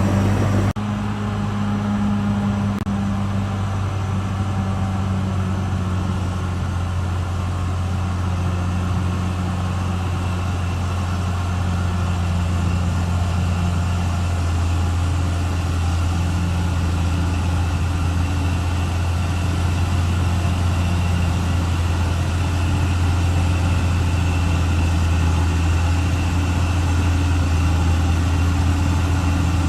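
Caterpillar D6R XL bulldozer's diesel engine running steadily with a deep, even hum, with a brief dip just under a second in.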